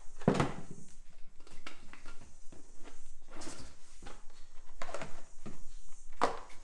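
Knocks and handling noise as a plastic bottle, a ball and a box are pushed into a cargo net in a car boot. There are several thuds against the boot, the loudest about a quarter-second in, and a few more around three and a half, five and six seconds in.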